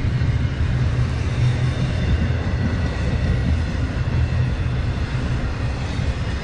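Intermodal freight train rolling past: a steady, heavy rumble of wheels on rail joints as double-stack container cars and trailer-carrying flatcars go by, easing slightly near the end.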